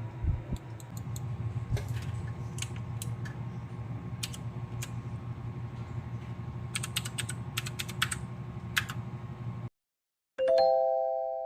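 Scattered clicks of computer keyboard typing over a steady low hum, with a quick run of clicks about seven seconds in. Near the end the sound cuts out and a short electronic chime of three rising notes rings and fades.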